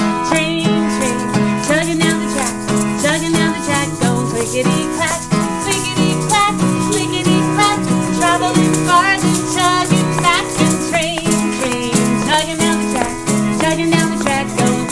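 Many plastic egg shakers rattling along with an acoustic guitar strumming a steady chugging beat, a train rhythm played together.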